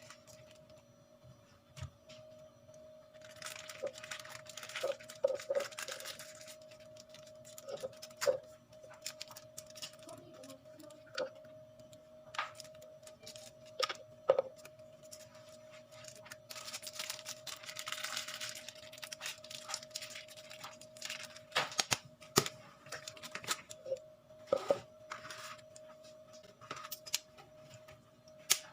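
Kitchen handling sounds while baking: scattered clicks and knocks of utensils and containers, with two stretches of hissing, one about four seconds in and one near eighteen seconds, over a steady faint hum.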